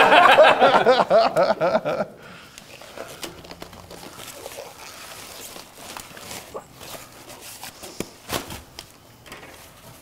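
About two seconds of indistinct talking, then low room noise with scattered small clicks and rustles from hands working a disposable glove onto one hand and handling things on a desk.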